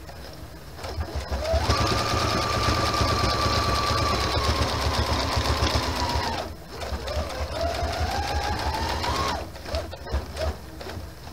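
Brother sewing machine stitching a decorative stitch, with a motor whine and fast needle strokes. It runs for about five seconds, stops briefly, then runs again for about two seconds, its whine rising in pitch.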